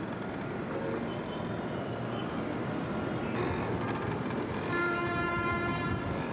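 Steady background noise of a town, with a horn sounding for about a second and a half near the end.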